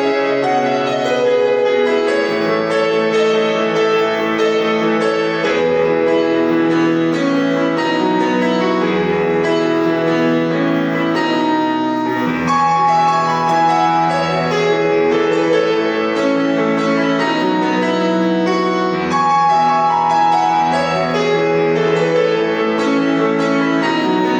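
Solo piano playing a melodic new-age piece, with chords held under a flowing melody and deep bass notes sounding every few seconds.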